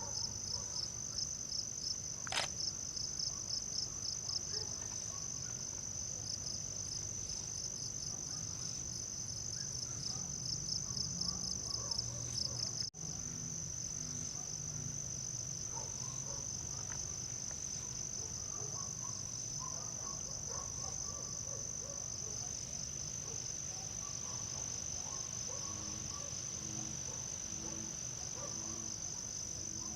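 Steady insect chorus: a continuous high-pitched trill, with a faster pulsing chirp layered over it until about halfway through, where the sound briefly drops out.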